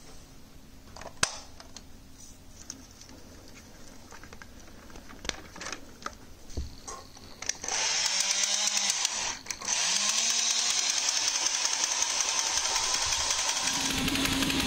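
Battery-powered toy Christmas train (The Classic Rail): a few light clicks and knocks as the cars are handled on the plastic track, then about eight seconds in the locomotive's small electric motor starts with a rising whine and the train runs with a steady whirring, clattering rattle of gears and wheels. The running cuts out for a moment about a second and a half later and picks up again; a low steady tone joins near the end.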